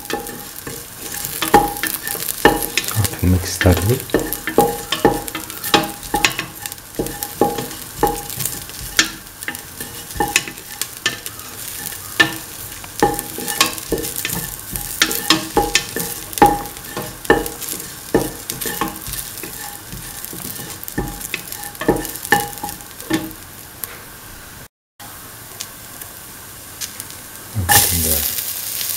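Chopped shallots and onion with fennel seeds frying in hot oil in a stainless steel pan, with a spatula scraping and clicking against the metal as they are stirred. Near the end, chopped green pepper pieces land in the pan and the sizzling gets suddenly louder.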